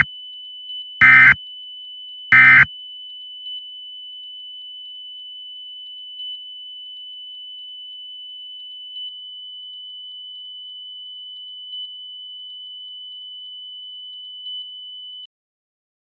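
Three short EAS SAME end-of-message data bursts, the rasping digital tones that close an Emergency Alert System message: one right at the start, one about a second in, one about two and a half seconds in. Under them a steady high-pitched tone runs with faint blips about every three seconds and cuts off suddenly near the end.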